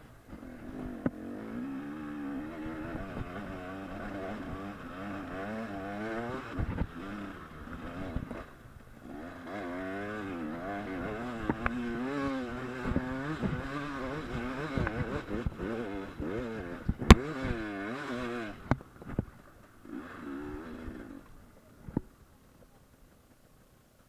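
Off-road dirt bike engine revving up and down as it is ridden over a trail, with a few sharp knocks over rough ground. The engine drops away near the end after one last short burst.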